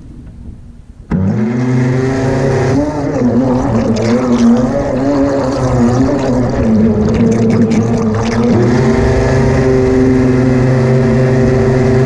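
A remote-control fishing boat's motor, heard from on board, cuts in abruptly about a second in and runs at speed, water rushing past the hull. Its pitch wavers for several seconds, then holds steady.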